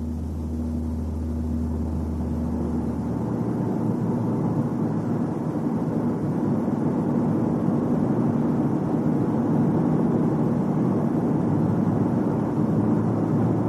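A car being driven on a test drive to reproduce a low droning hum. Steady road and drivetrain noise grows gradually louder as the car gathers speed.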